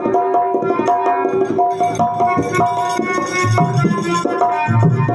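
Stage accompaniment music: a tabla-type hand drum beating in a steady rhythm under a held, shifting melody.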